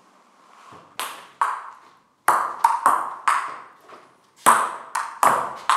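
Table tennis rally: the ball clicking off paddles and bouncing on the table, about ten sharp hits in an uneven rhythm, starting about a second in.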